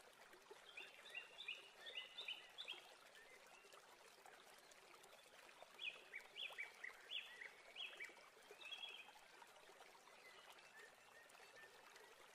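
Near silence with faint bird chirps: two runs of short, high, falling chirps, one about a second in and another around the middle.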